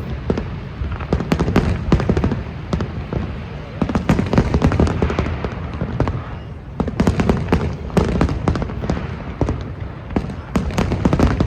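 Fireworks bursting in a rapid, continuous barrage of bangs and crackles, with crowd voices mixed in.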